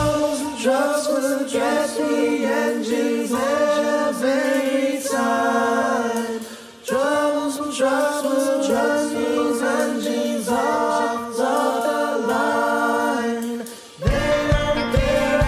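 A group of voices singing a song in short chanted phrases, with no bass or drums under them and a brief break about seven seconds in. The full band, with bass and a beat, comes back in just before the end.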